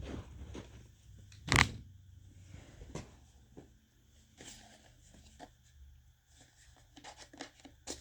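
Cardboard smoke-alarm packaging being handled and pulled open by hand: scattered rustles, scrapes and small knocks, with one sharp loud crack about a second and a half in and a busier cluster of handling sounds near the end.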